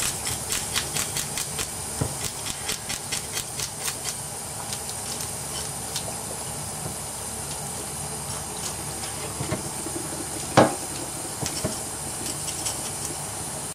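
Steady hiss, with a run of quick light clicks over the first few seconds and one louder knock about ten and a half seconds in.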